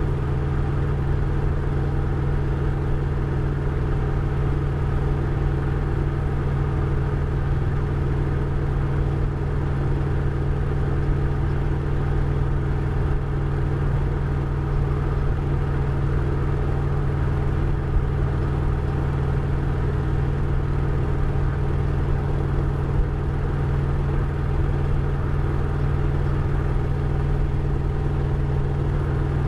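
Harley-Davidson Road Glide ST's Milwaukee-Eight 117 V-twin engine running steadily at a constant pitch, with even road or wind noise above it.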